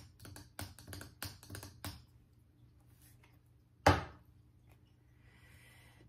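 Tarot cards handled on a tabletop: light clicks and taps, several a second, for about two seconds. About four seconds in comes one loud knock on the table, then a soft rustle of the deck being shuffled in the hands.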